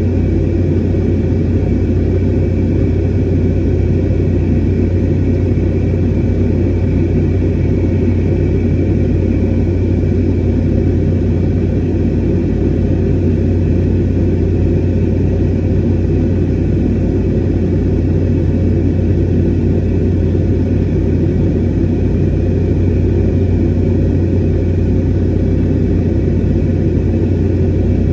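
Airliner cabin noise in flight: the steady rush and low drone of the jet engines and airflow, even throughout.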